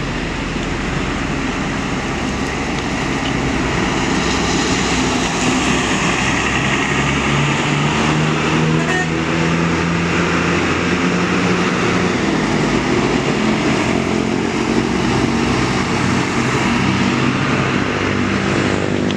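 Diesel coach engines running as a convoy of buses pulls out, getting louder about four seconds in, with the engine note shifting in pitch as they move off.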